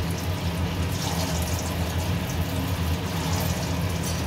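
Hot oil sizzling and bubbling steadily around chhana (fresh cheese) koftas deep-frying in a stainless steel kadai, with a low steady hum underneath.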